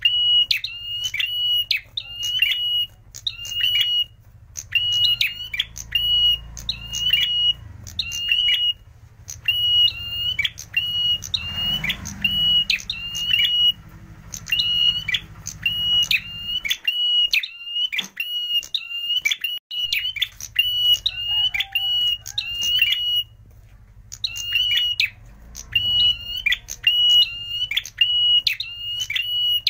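Ashy tailorbird (prenjak merah) calling in a fast series of sharp, high chip notes, about three a second, in runs of several seconds broken by brief pauses.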